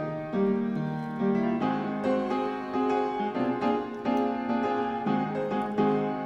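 Background piano music: a gentle melody of notes about every half second over held lower notes.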